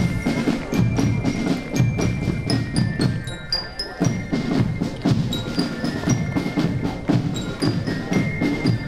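Marching band playing a march as it passes: snare and bass drums keep a steady beat under a flute melody, with short high bell-lyra notes ringing over the top.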